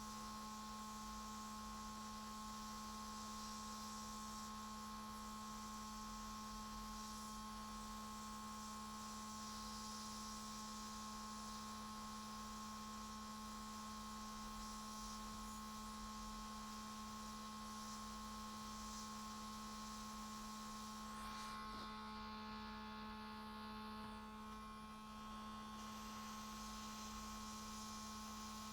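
Hot air rework station blowing steadily on a motherboard to reflow a MOSFET: a low, even hum with a steady whine and airy hiss. The hiss thins out for a few seconds about three-quarters of the way through.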